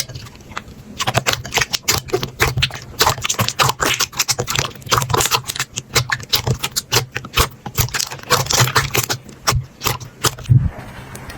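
Slime being worked by hand, giving a dense run of crackles and clicks. The run thickens about a second in and thins out near the end.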